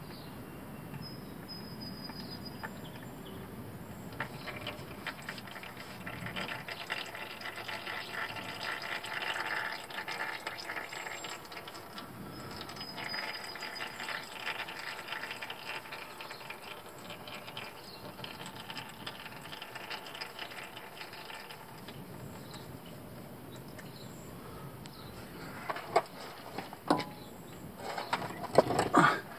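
75W-90 gear oil draining from a GM 1500 truck's front differential and splashing into a drain pan as a steady pouring noise, which tapers off about two-thirds of the way through as the differential runs empty. A few sharp knocks near the end.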